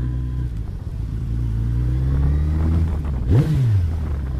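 Suzuki Hayabusa's inline-four engine running through a Scorpion aftermarket exhaust at low speed, its pitch creeping up gently. About three seconds in comes a sharp throttle blip that rises and drops back within half a second.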